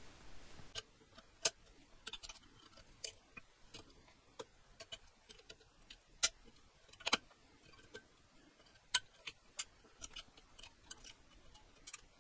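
Irregular sharp metallic clicks and taps as pliers and small parts are handled against a bare aluminium motorcycle cylinder head, with a couple of louder clicks about halfway through.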